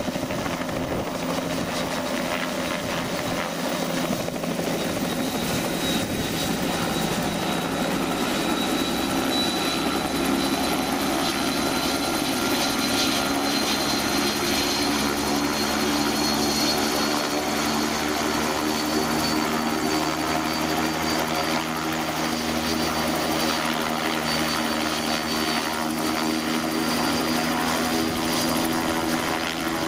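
Mil Mi-8-family twin-turbine transport helicopter flying past: a steady rotor hum with a thin, high turbine whine through the middle.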